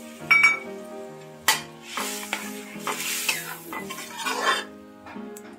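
Water poured from a bowl into a kadai of cooking vegetables, adding water so the vegetables boil. A steel spatula then stirs through the curry, knocking against the pan.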